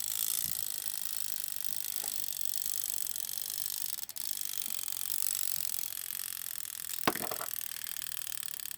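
A few light clicks and taps from handling the small Westclox Baby Ben alarm clock movement, the loudest a sharp double click about seven seconds in, over a steady hiss.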